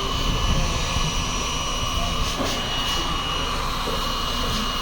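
A small motor running steadily with a high, even whine and hiss.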